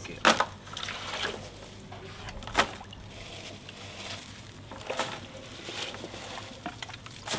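Water poured from a plastic jug into a plastic basin onto dried hibiscus flowers, sloshing, with four sharp knocks spaced about two seconds apart.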